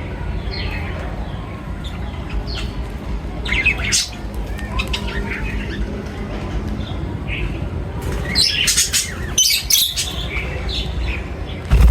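Several birds chirping and squawking, with a denser run of harsh squawks near the end, over a steady low rumble.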